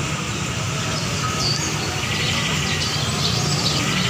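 Small birds chirping and twittering over a steady low rumble of traffic. The chirps start about a second and a half in and grow busier after that.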